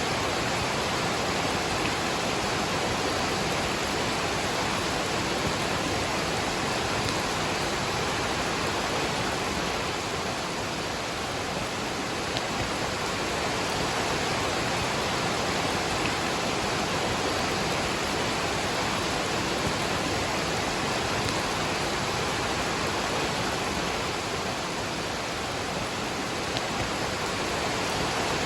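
Waterfall and rain: a steady, even rush of falling water that holds the same level throughout.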